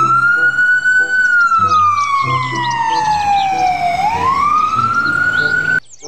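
Ambulance siren wailing: one long tone that rises, falls slowly over about three seconds, then rises again before cutting off suddenly near the end.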